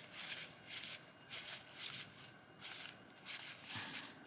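1989-90 NBA Hoops basketball cards being flipped one by one off the top of a pack. Each card slides off with a soft cardboard swish, roughly one every half second or so.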